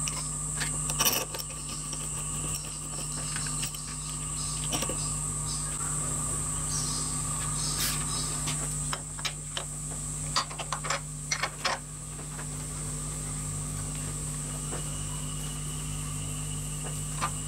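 Small metal parts being handled and fitted together, an aluminium fixture into a cast aluminium crankcase and a hex nut onto a threaded rod, giving scattered light clicks and knocks, most of them a little past the middle. Under them runs a steady workshop hum.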